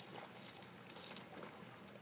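Faint, irregular crackling and light tapping of thin pond ice being broken up by a Brittany spaniel swimming through it.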